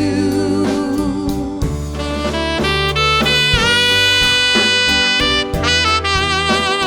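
Saxophone solo over a band's bass and drums in an R&B/jazz song, the sax holding one long note in the middle of the phrase.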